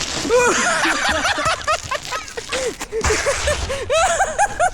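High-pitched laughter: long runs of quick 'ha' syllables, several a second, that keep going in waves.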